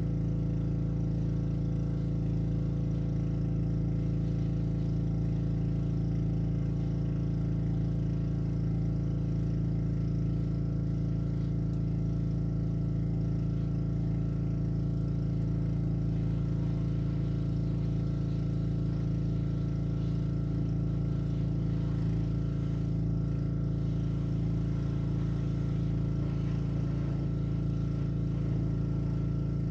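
Honda-engined Black Max gas pressure washer running steadily at a constant engine speed.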